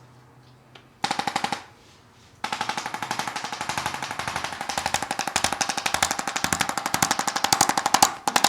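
Handheld electric percussion instrument hammering rapidly with a steady motor tone. A short burst comes about a second in, then it runs continuously from a couple of seconds in, growing a little louder near the end.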